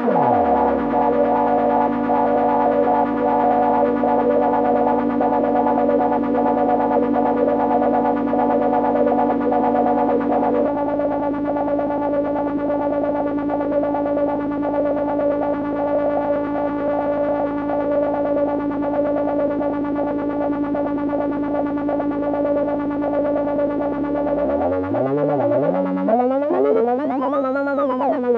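Homemade Negistor cracklebox drone generator played through a dual auto-filter: a steady electronic drone of several layered tones with a fluttering filtered texture. A falling pitch glide opens it, the drone shifts about ten seconds in, and wavering glides sweep up and down near the end.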